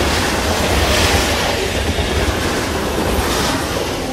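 Namma Metro train running, heard from inside the coach: a steady deep rumble of wheels on the rails, with swells of higher rail noise about a second in and again just after three seconds.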